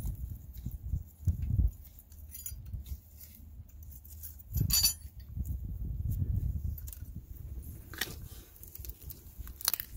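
Light metallic clinks and rattles of steel brake caliper retaining clips being worked off by hand, with one sharp, ringing clink about halfway through and more clicks near the end as a wrench goes onto the caliper hardware, over dull handling knocks.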